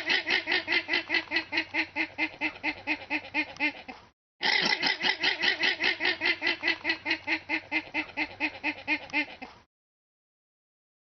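An animal calling in a fast, even run of short repeated notes, about seven a second. There is a brief break about four seconds in, and the calling stops well before the end.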